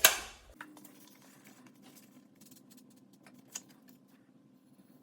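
A single loud metal clank at the start, ringing briefly as it dies away. Then a faint low hum with a few small handling clicks, one of them sharper about three and a half seconds in.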